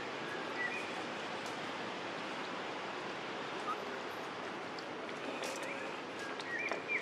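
Steady outdoor rushing noise, with a few faint, short, high chirps, most of them near the end.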